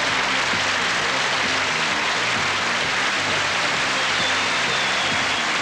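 Studio audience applauding steadily, with music playing faintly underneath.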